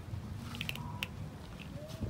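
Several cats crunching dry kibble, with sharp little crunches and clicks about half a second and a second in.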